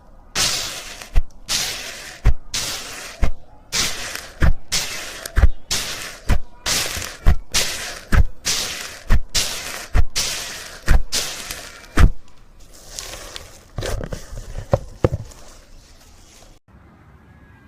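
Slime being worked by hand: about a dozen squelching strokes, roughly one a second, each ending in a sharp slap. After that come a few seconds of softer crackling pops before it stops.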